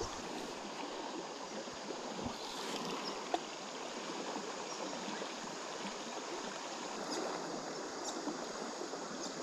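Steady rushing of a shallow, fast-flowing river, with one brief click about three seconds in.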